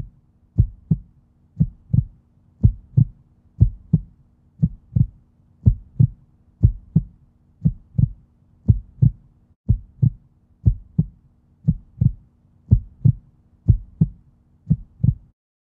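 Heartbeat sound effect: a steady double thump, about one pair a second, over a faint low hum. It stops just before the end.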